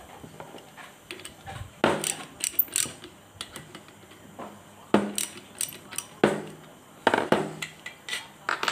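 Irregular metallic clicks and clinks as a wrench and the clutch shoes of a backpack brush cutter are handled and loosened, metal parts knocking together in short clusters.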